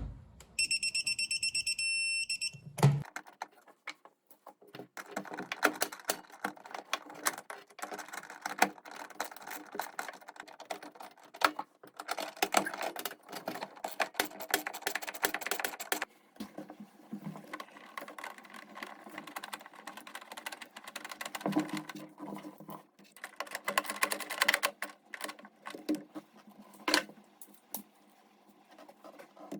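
Ratchet wrench clicking in quick runs, with short pauses, as the bolts holding new friction dampers to the washing machine's body are tightened. A steady high electronic beep sounds for about two seconds near the start.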